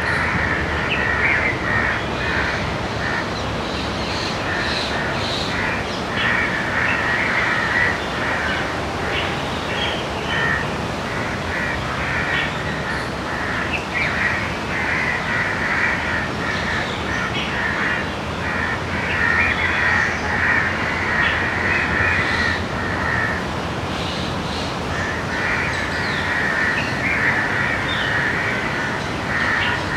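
A group of crows cawing loudly and almost continuously, many calls overlapping, with short lulls now and then.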